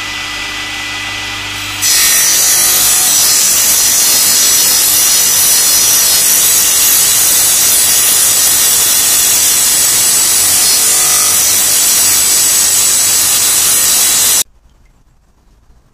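Table saw running free with a steady hum; about two seconds in, the blade bites into a softwood board and a loud, even cutting noise carries on for about twelve seconds as the board is ripped along its length, then stops abruptly near the end.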